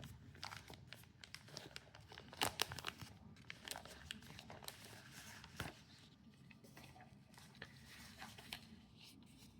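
Plastic packaging pouch being handled and opened: faint, intermittent crinkling and rustling, with a cluster of louder crackles about two and a half seconds in.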